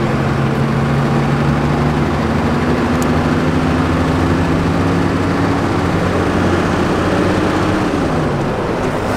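Car engine and tyre/road noise heard from inside a moving car. The engine note climbs gradually as the car gathers speed, then drops about eight seconds in.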